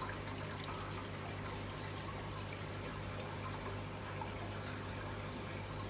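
Steady running-water noise over a low, even hum, typical of a saltwater aquarium's pumps and circulating water.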